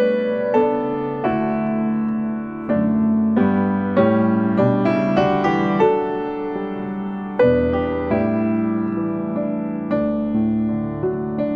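Slow, gentle piano music: single notes struck one after another over held bass notes, the sound of a worship-service instrumental interlude.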